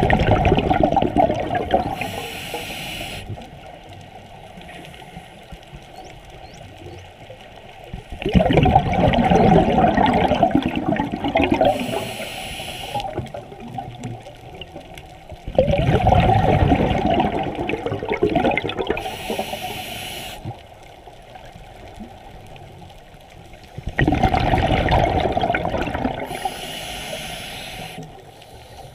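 A scuba diver's open-circuit breathing underwater: four breaths about eight seconds apart, each a loud rush of exhaled bubbles for two to three seconds, followed by a short hiss from the regulator.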